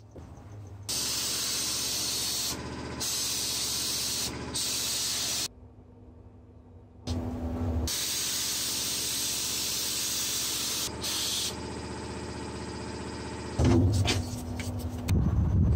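A loud, steady hiss like spraying or escaping gas, which cuts in and out abruptly several times, with a pause of over a second midway; a heavier low rumble comes in near the end.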